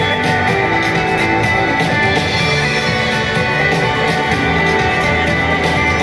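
Music with a steady beat and sustained instrumental notes.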